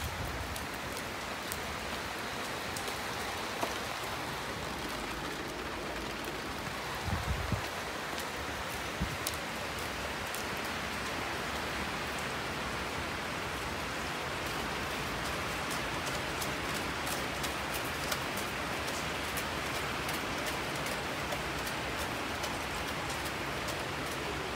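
Steady rain falling on pavement and nearby surfaces, with scattered sharp drop ticks. A few low thumps about seven seconds in.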